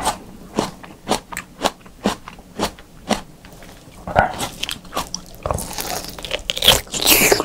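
Close-miked eating of a slab of raw beef: wet mouth clicks and smacks of chewing about twice a second, then a louder bite into the meat near the end.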